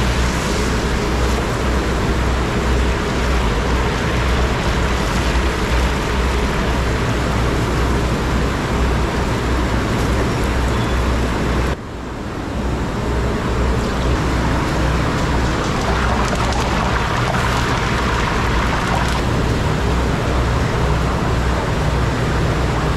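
Steady rushing noise of a large gas stove burner under a big pot of chicken boiling hard, with a low fluttering rumble. The noise dips briefly near the middle.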